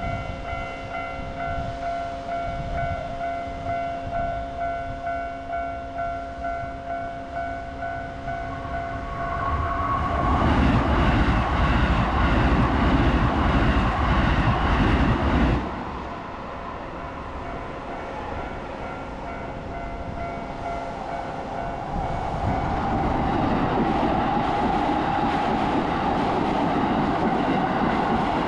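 A rhythmic ringing tone pulses steadily for the first several seconds, then a train passes close by in a loud rumble that cuts off suddenly. A steadier rushing noise rises again near the end.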